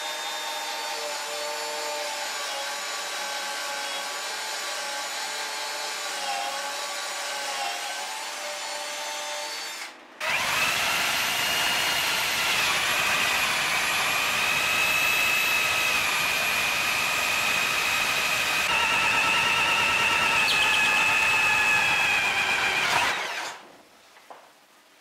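Power drill with a hole saw cutting the vent hole through the boat's plywood side: a steady motor whine whose pitch sags briefly under load. About ten seconds in it breaks off and starts again louder for about thirteen seconds, then stops.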